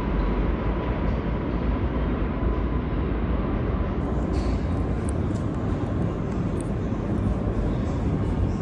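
R62A subway train running, a steady heavy rumble with a faint high whine that fades out in the first second.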